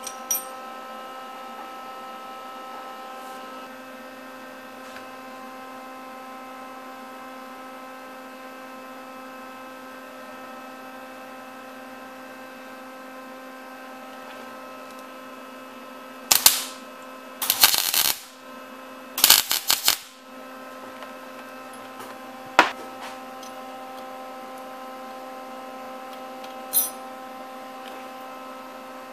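Electric arc welding on a broken alternator bracket clamped in a vise: three short bursts of arc in quick succession a little past the middle, then two brief single arc snaps later, the tacks joining the two halves back together. A steady electrical hum sits underneath throughout.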